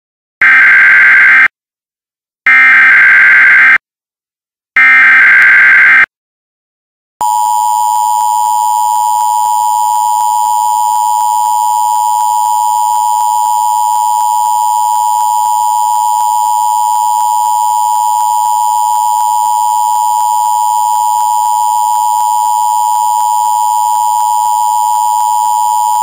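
Emergency Alert System tornado-warning opening: three short bursts of SAME digital header data, each about a second long with a brief gap between them. From about seven seconds in comes the steady two-tone EAS attention signal, one unchanging chord.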